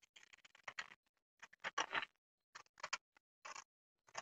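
Scissors cutting through brown kraft-paper pattern, a quick series of short snips in four or five runs, trimming a curved piece off the pattern.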